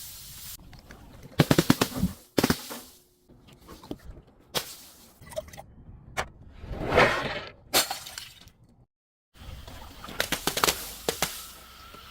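Glass breaking and crunching as it is crushed: separate bouts of sharp cracks and shattering, the longest crunch about seven seconds in, and a quick run of snaps near the end.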